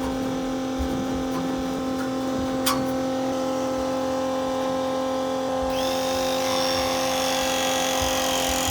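Small electric transfer pump running with a steady hum while it drains the water heater tank. There is a sharp click about three seconds in, and a high whistling tone joins about six seconds in.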